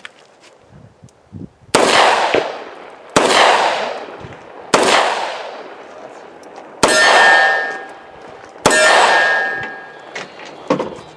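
Five shots from a Taurus 85 Ultra Lite five-shot .38 Special revolver, about one and a half to two seconds apart. Each report is followed by the ring of the steel target being hit, and the last two hits ring on clearly as they fade.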